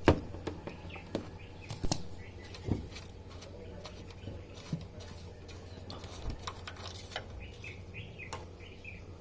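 Tool-handling noise at a scooter's oil filler cap: a screwdriver and hand click and scrape on the engine case as the cap is worked open, with a sharp click at the very start and another about two seconds in, then a few lighter clicks.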